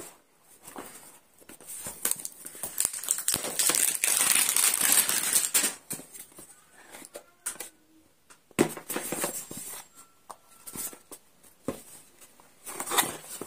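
Packaging on a smartphone's retail box crinkling and tearing as the box is unsealed. There is a long stretch of rustling from about two to six seconds in, then shorter rustles and clicks as the seal sticker on the box's edge is picked and peeled.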